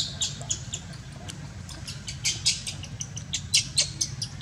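Newborn baby macaque squeaking: quick runs of short, high-pitched squeaks, a brief run at the start and a longer one from about two seconds in.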